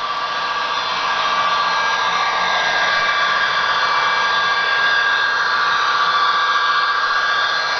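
HO-scale model of an Alaska Railroad SD70MAC diesel locomotive running with its passenger cars: a steady whirring hum with a few held tones. It grows louder over the first few seconds as the train comes closer, then holds steady.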